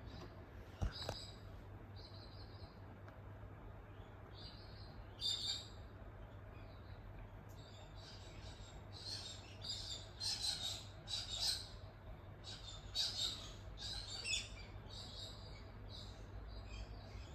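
Faint, steady low hum as a 48-inch Evergo ceiling fan coasts to a stop after being switched off, with short high chirps coming and going, more often in the second half.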